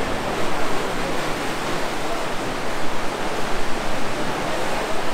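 Sea waves surging and washing against the rocks at the cave's mouth, a steady rushing noise that swells and eases.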